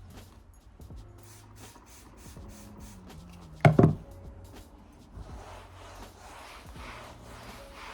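Small handling clicks, then a loud double knock a little before halfway through, followed by a faint rhythmic rubbing, about one stroke every half second.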